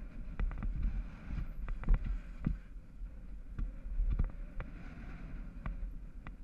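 Wind buffeting the microphone of a mountain bike riding downhill on a loose dirt track, with tyre noise and a scatter of sharp, irregular clicks and rattles from the bike jolting over bumps.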